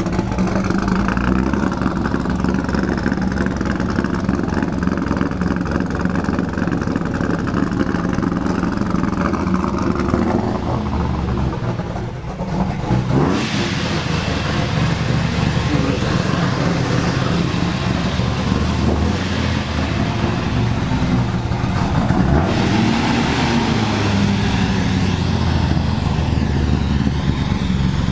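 Porsche 928 V8 engine running at low revs as the car is moved slowly, with a short rise in revs about halfway through.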